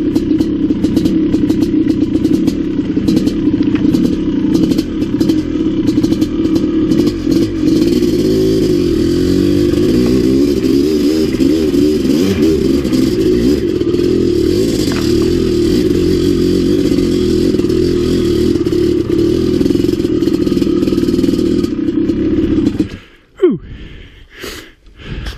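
Maico 700 dirt bike engine running under changing throttle while riding a rough trail, with rattles and scraping from the bike and brush. The engine cuts off suddenly a couple of seconds before the end, leaving a few clicks.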